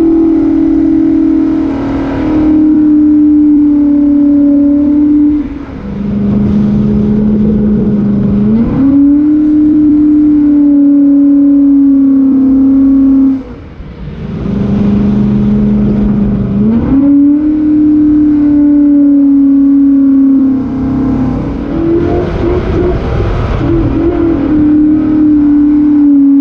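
V8 engine running loud at steady high revs, its pitch held for several seconds at a time. Twice it drops to lower revs, about six seconds in and again about fourteen seconds in, then climbs smoothly back up and holds.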